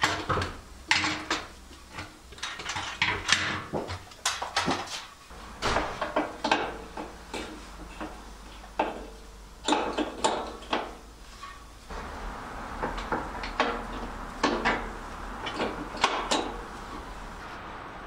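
Irregular metallic clinks and clanks of hand tools and bolts on steel as a replacement rear differential is bolted in under a car on a lift.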